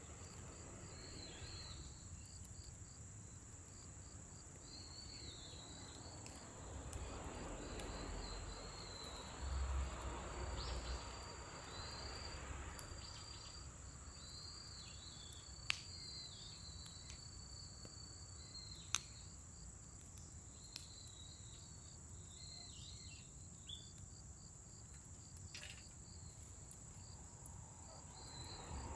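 Scrap-wood fire burning in a fire pit, giving a few sharp pops, over a steady high insect trill with chirping. A low rush swells for a few seconds about a third of the way in.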